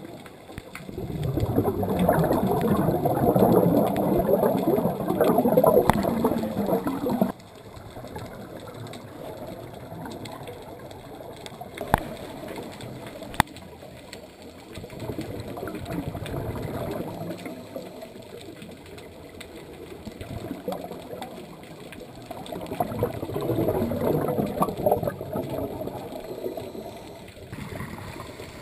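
Underwater: a scuba diver's exhaled regulator bubbles rushing past in two long bursts, the first cutting off suddenly about seven seconds in, with quieter water noise between. Two sharp clicks in the middle.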